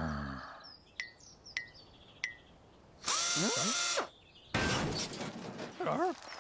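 Cartoon sound effects: three sharp clicks about half a second apart, then two loud bursts of hiss with sliding whistle tones, the first about a second long, the second about two seconds.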